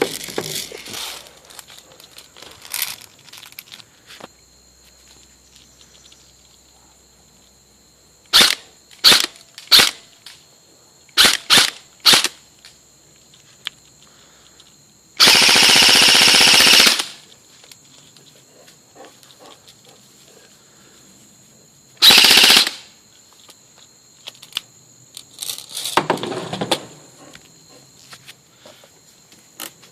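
G&G airsoft gun firing: about six single semi-automatic shots a little under a second apart, then a full-auto burst lasting about two seconds, and a second, shorter full-auto burst later on.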